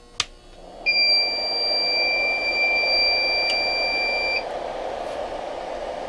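A switch clicks and a small electric space heater starts up, its fan blowing with a steady rushing noise. A high, steady electronic beep sounds over it for about three and a half seconds, then stops, leaving the fan running.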